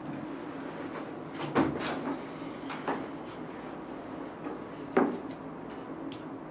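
A few short knocks and thuds, about a second and a half, three and five seconds in, with soft rustling as a folder and papers are handled on a table, over a low steady hum.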